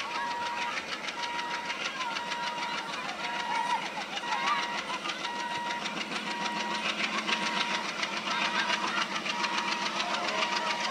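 Old diesel locomotive engine chugging as it hauls a train of coaches slowly away. A high beep repeats on and off throughout, with a few bird chirps.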